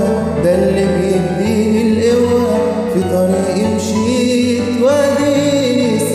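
Egyptian Arabic song: a male voice sings a drawn-out, ornamented melody without clear words over steady instrumental backing.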